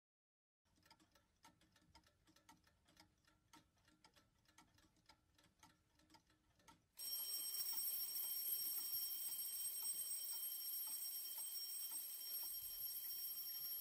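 Clocks ticking faintly, about two ticks a second. About halfway through, a much louder steady ringing of alarm clocks starts suddenly and keeps going.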